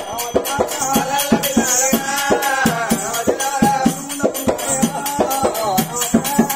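Telangana oggu katha folk music: a barrel-shaped dhol drum beaten in a quick, steady beat, with jingling metal percussion and a held melody line over it.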